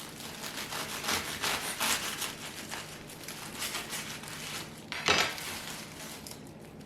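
A knife sawing back and forth through a sandwich wrapped in wax paper and foil, with repeated scraping, crinkling strokes and one sharper knock about five seconds in.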